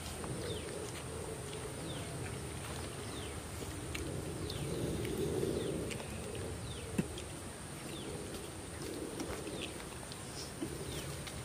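Birds calling with many short, falling chirps, roughly one a second, over a steady high hiss, with one sharp click a little past halfway.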